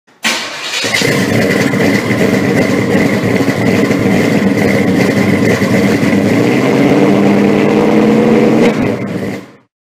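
Car engine running loud and steady at a held pitch, starting suddenly and fading out about nine seconds in.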